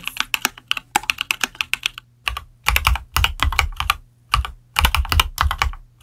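Typing on a mechanical keyboard: a fast run of key clicks, a short pause about two seconds in, then more bursts of keystrokes with deeper thuds among the clicks, stopping suddenly at the end.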